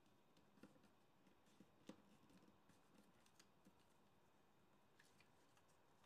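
Faint rustling and soft crinkling clicks of origami paper being creased and handled by fingers, scattered through the first five seconds and loudest about two seconds in, over near-silent room tone.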